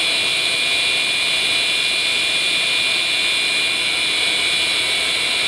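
Jet aircraft engines running steadily: an even rushing noise with a high whine of several held tones on top.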